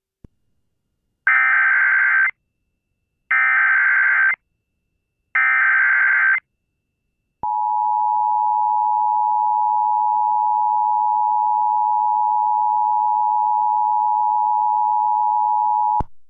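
Emergency Alert System activation for an AMBER Alert: three short bursts of SAME header data tones, each about a second long, then the steady two-tone EAS attention signal held for about eight and a half seconds before cutting off suddenly.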